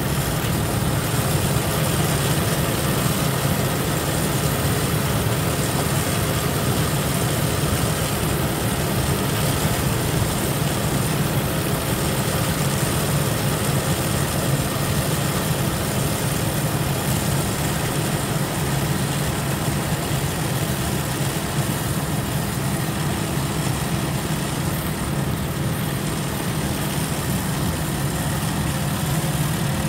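Yanmar YH6115 rice combine harvester working through the crop: its diesel engine and harvesting machinery make a steady low drone over a wide, even noise.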